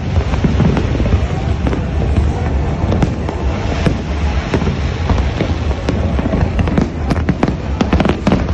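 Fireworks display: a continuous low rumble of bursts overlaid with many sharp cracks and pops, coming thicker and faster near the end.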